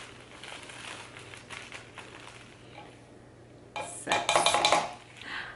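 Plastic measuring spoon scraping and tapping against a plastic measuring cup as almond flour is scooped and knocked in. The scraping is soft at first, then about four seconds in comes a louder run of quick taps and clatters against the cup.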